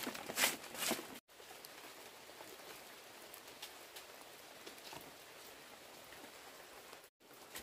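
A few sharp crunching rustles in the first second. After an abrupt cut comes a faint steady hiss with occasional light ticks, like light rain or outdoor ambience.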